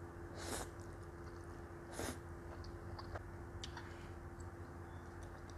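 Close-miked eating: two quick slurps of Samyang Rose instant noodles, about half a second and two seconds in, then chewing with small wet mouth clicks. A steady low hum sits underneath.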